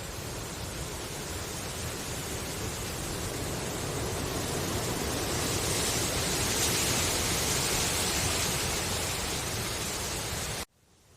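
Wind rustling through bamboo leaves as a steady hiss that swells gradually, then cuts off suddenly near the end and comes back much fainter.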